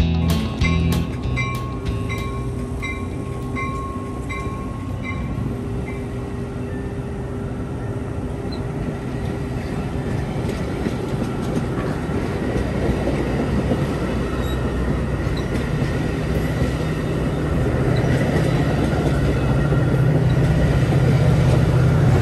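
Metra commuter train rolling past at close range, its stainless bilevel coaches clattering over the rail joints. A grade-crossing bell dings about twice a second for the first few seconds. The low diesel rumble of the train's locomotive grows louder toward the end as it draws near.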